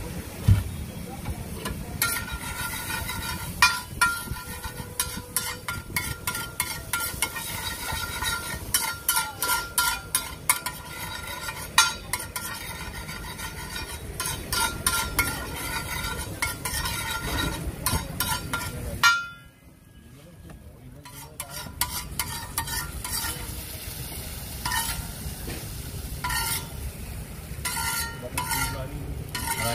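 Metal spatula scraping and clattering on a flat iron griddle (tawa) as an egg, butter and cheese mixture is stirred and spread, over a steady sizzle of frying. The sound drops away briefly a little past two-thirds of the way through, then the scraping picks up again.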